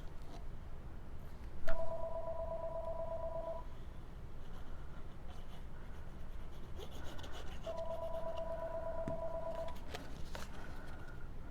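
An electronic two-tone ring sounds twice, each ring steady and about two seconds long, like a telephone ringing. Between the rings come soft taps and rustles of card stock being handled and glued.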